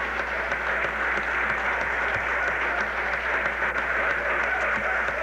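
Audience applauding steadily: a dense patter of many hands clapping together, as a standing ovation.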